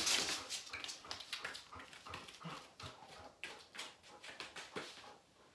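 A dog's feet on interlocking foam floor mats: quick, irregular footfalls with claw scuffs as it dashes out to a toy, loudest at the start, then softer, sparser steps as it walks back.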